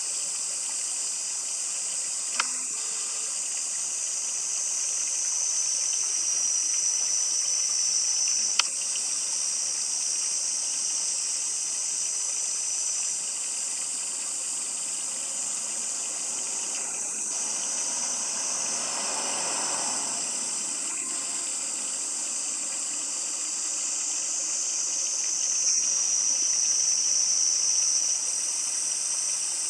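A steady, high-pitched chorus of insects that swells louder twice, with a few faint clicks.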